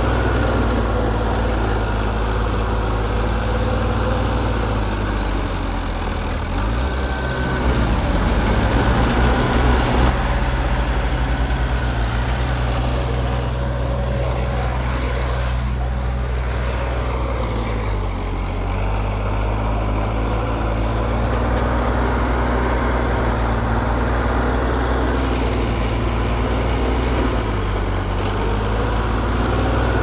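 A bulldozer's heavy diesel engine running steadily while working, with a louder, rougher stretch about seven to ten seconds in.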